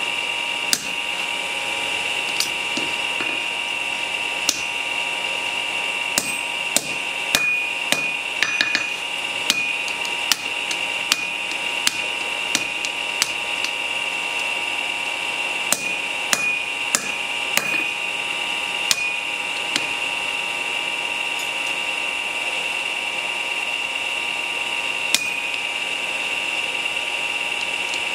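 Hand hammer striking red-hot steel on an anvil in irregular blows, tightly spaced through the middle, with a pause of several seconds near the end. A steady high-pitched machine whine runs underneath.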